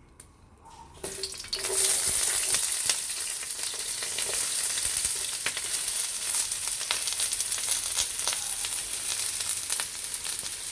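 Chopped onions going into hot cooking oil in a pan, which starts sizzling loudly about a second and a half in and keeps frying steadily with fine crackles as they are stirred.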